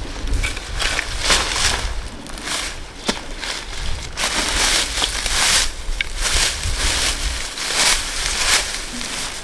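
Irregular crunching and crackling, a run of rough strokes with a few sharp snaps, as of plant material being crushed or broken.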